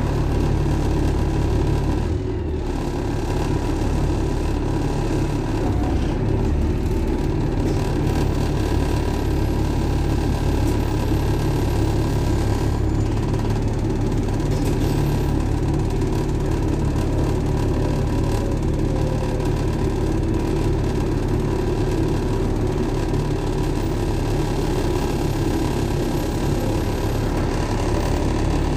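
Diesel engine of a Volvo B7TL double-decker bus running steadily, heard from inside the bus as a low, even hum, with a brief dip in level about two seconds in.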